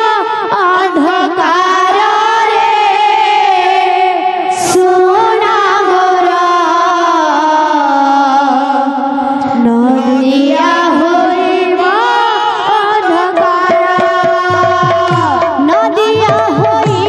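Odia devotional kirtan bhajan music, a melody line that sinks lower through the middle and climbs back up about ten seconds in.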